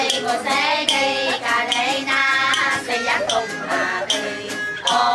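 Several women singing a Vietnamese folk song together, accompanied by a plucked lute.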